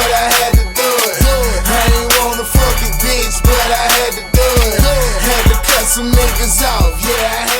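Hip hop beat playing without vocals, with heavy bass hits and a repeating high melody.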